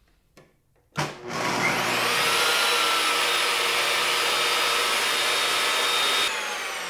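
Bosch 4100XC-10 table saw's 15-amp motor switched on about a second in, spinning the 10-inch blade up to speed with a rising whine and then running steadily with no wood being cut, at about 87 dBA at 30 inches. Near the end it is switched off and starts to wind down with a falling whine.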